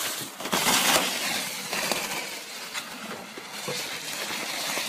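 Plastic sled scraping and crunching down an icy snow slide, loudest about half a second in, with scattered sharp clicks.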